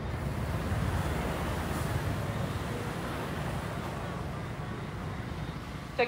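Outdoor street ambience: a steady low rumble and hiss with no distinct events, swelling slightly about a second in.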